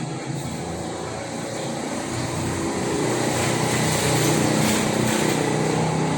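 A motor running steadily with a low hum, growing louder toward the middle and holding there.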